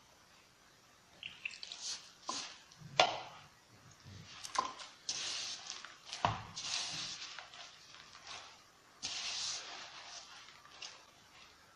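Hands mixing flour, crumbled cheese and water into a dough in a plastic bowl: irregular rustling and squishing as the dough is gathered, with a few sharp knocks against the bowl.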